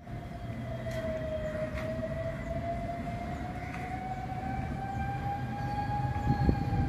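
Boat engine running, a low rumble under a steady whine that drifts slowly in pitch, getting a little louder toward the end.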